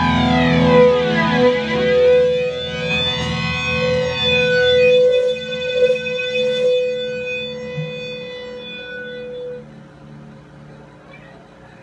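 A rock band's song ending on electric guitar and effects ringing out: tones sweeping up and down over a held note and a pulsing low drone. The sound fades away about ten seconds in, leaving a low amplifier hum.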